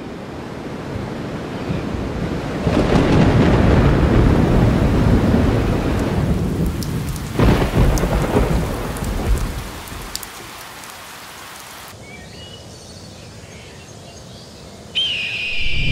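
Heavy rain with rolling thunder that builds in a couple of seconds in, a sharp thunderclap about halfway through, then lighter rain with scattered drips. A high call comes in near the end.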